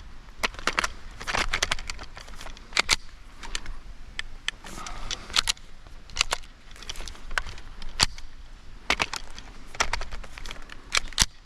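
A string of sharp .22 rimfire shots from a Ruger 10/22 rifle, fired at an irregular pace of roughly one a second.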